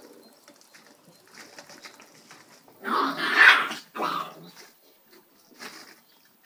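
Shiba Inu vocalizing: a loud outburst about three seconds in that lasts about a second, followed straight away by a shorter one.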